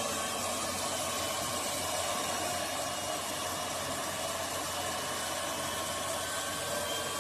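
Steady machinery noise: an even hiss with a faint, constant hum running underneath.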